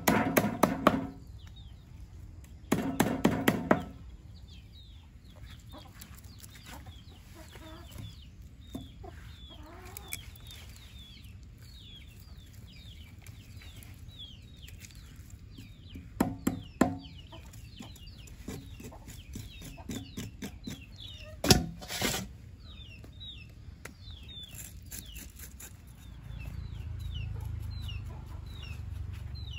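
Fowl calling: loud pitched bursts near the start and a little past halfway, over many short high chirps throughout. A sharp knock about two-thirds of the way in is the loudest sound, and a low rumble sets in near the end.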